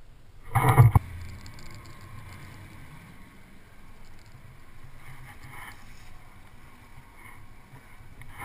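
Steady wind and water noise aboard a small boat at sea, with one brief loud burst of noise about half a second in.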